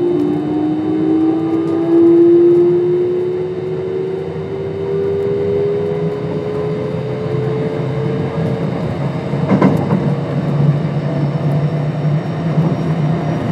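Kintetsu 5200 series train's Mitsubishi GTO-VVVF inverter and traction motors whining as the train gathers speed, several tones rising slowly in pitch and fading out about nine seconds in. After that comes steady wheel and rail running noise, with a single knock from the track shortly after the whine stops.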